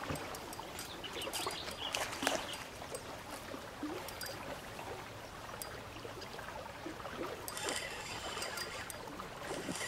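Water trickling and splashing while a hooked fish is reeled in beside a small boat, with scattered light clicks and knocks.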